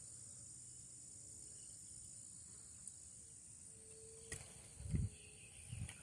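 Steady high-pitched chirring of crickets and other insects. A sharp click comes about four seconds in, followed by two dull low thumps near the end.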